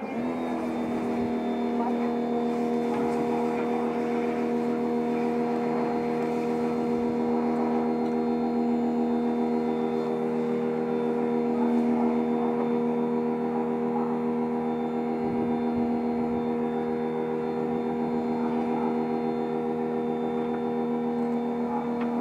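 Electric pressure washer switching on and running with a steady, even hum.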